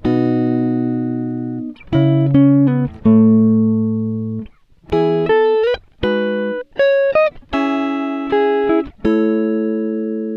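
Background music of plucked guitar chords, each ringing out and fading, with short breaks between them.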